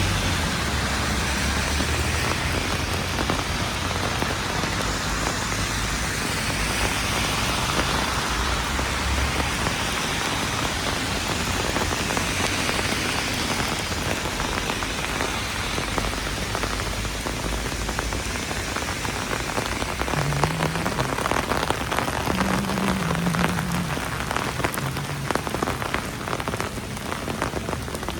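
Heavy rain falling steadily, a dense hiss of drops on hard surfaces. From about two-thirds of the way through, single drop impacts stand out more sharply.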